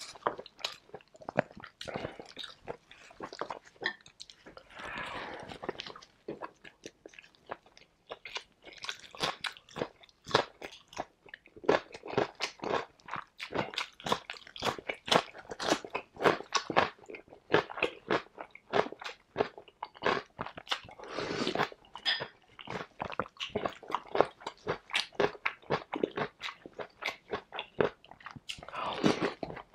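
Close-miked eating: crisp crunching bites and chewing in quick succession, including bites of raw cucumber slices.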